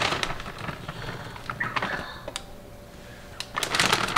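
Plastic bag crinkling and rustling as it is handled and small cubes are shaken out of it into a hand, with a louder burst of crinkling near the end.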